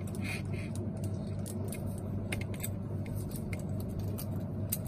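Small irregular clicks and ticks from a combination cabinet lock being handled, its metal parts and key knocking lightly, over a steady low hum.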